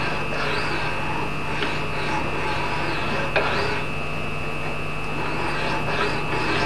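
A hand file scraping in repeated strokes across the steel bevel of an axe head clamped in a filing jig. The file is reshaping the edge of a dulled axe.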